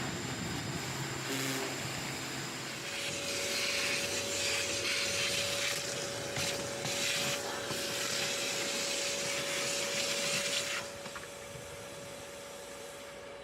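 A motorised cleaning machine runs with a steady whine under a loud hiss. The hiss cuts off suddenly about three seconds before the end while the motor keeps running.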